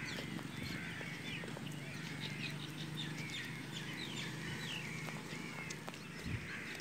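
Small birds chirping: many short rising and falling calls in quick succession, over a low steady hum.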